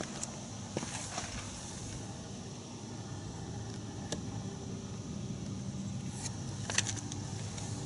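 Quiet outdoor background: a steady low hum with a few faint clicks spread through it.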